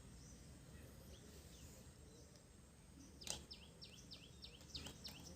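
Near silence with a bird calling in the background: a quick run of about seven identical high chirps, about three a second, starting about three seconds in. A single sharp click comes just as the chirps begin.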